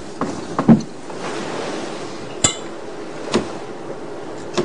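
A utensil clicking and clinking against a plate in several separate sharp knocks, the sharpest about two and a half seconds in, over a steady background hiss.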